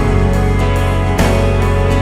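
Background music: a guitar-led instrumental track with a steady bass line.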